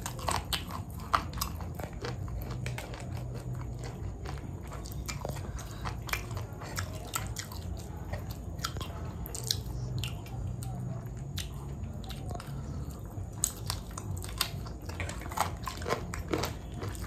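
A person eating close to the microphone: chewing and biting food, with crisp crunches and many small sharp mouth clicks, over a steady low hum.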